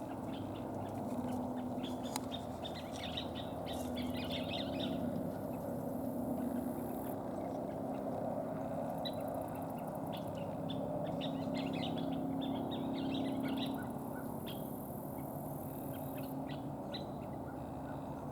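Northern mockingbird singing in clusters of short, high chirps, with scissor-tailed flycatchers calling in the background, over a steady low hum.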